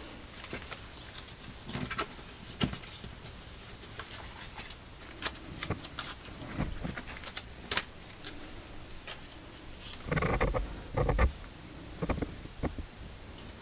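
Handling noises from hands and a small tool working dried flowers into a resin tray mould: scattered light clicks, taps and rustles, with a louder run of knocks and rubbing about ten to eleven seconds in.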